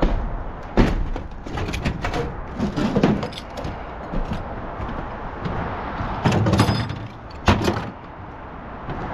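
A series of sharp knocks and clatters, the loudest about a second in and about seven and a half seconds in, over a steady background rush.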